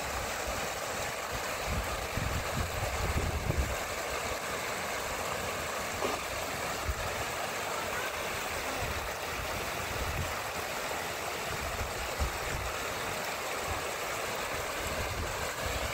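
Heavy rain falling as a steady, even rushing hiss, with irregular low rumbles underneath.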